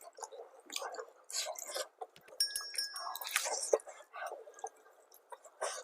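Close-miked chewing and mouth sounds of someone eating braised pig heart, in irregular wet bursts. A brief clear ringing tone sounds about two and a half seconds in and lasts under a second.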